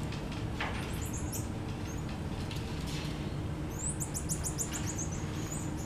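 Black-tufted marmoset giving short, very high-pitched chirping calls, with a quick run of about ten falling chirps a little after the middle, over a steady low hum.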